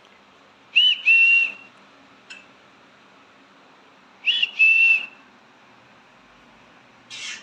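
Green-cheeked conure whistling twice, each call a short rising-and-falling note followed by a longer steady whistle, then a brief harsh squawk near the end.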